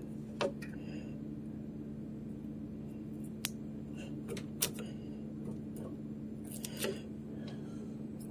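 Small metal scraper picking and scraping at peeling wood veneer on a particle-board desk, giving a few brief, scattered scratches and clicks. A steady low hum runs underneath.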